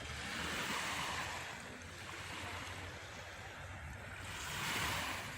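Sea waves breaking and washing in, in two swells of surf, the second near the end the louder.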